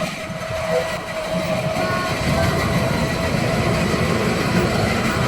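Amusement-park miniature train running: a steady low rumble with a steady hum over it.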